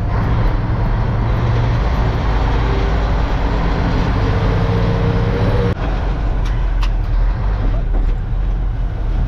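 An old Mack truck's diesel engine running under way, heard from inside the cab, a low steady drone whose tone climbs slightly before a sudden break about six seconds in, after which it carries on.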